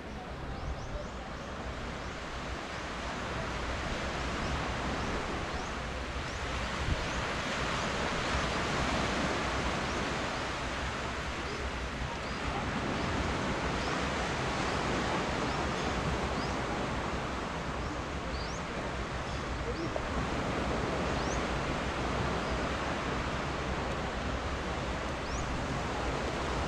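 Surf washing up on a sandy beach, a steady hiss that swells and fades in slow surges every few seconds, with a low rumble of wind on the microphone.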